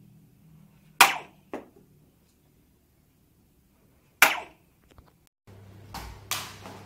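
Several sharp cracks at uneven gaps, the loudest about a second in and just past the middle, each dying away quickly.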